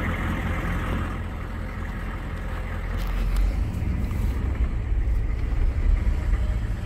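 Cab noise of an old pickup truck with a 6.5-litre diesel V8 driving slowly: a steady low engine and road rumble with tyre noise.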